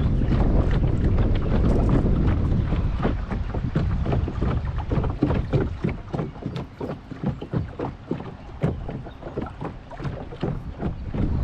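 Strong wind buffeting the microphone, easing after a few seconds, with choppy water lapping and slapping against the side of a small boat in irregular knocks.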